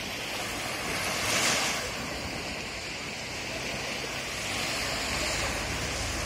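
Small sea waves washing onto a sandy beach, a steady hiss of surf that swells about a second and a half in as one wave breaks. Wind rumble on the microphone grows near the end.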